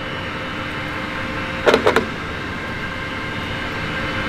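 Steady room hum, broken about two seconds in by a brief double clack of hands handling the grinder's handle controls.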